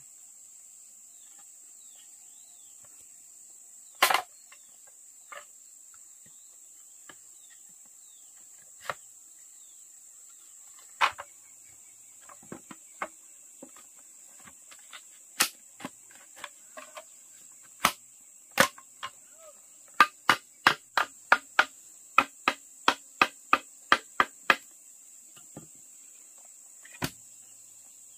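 Sharp blows of a tool striking wood: scattered strikes, then a quick even run of strokes, about three a second, some twenty seconds in. A steady high insect drone runs underneath.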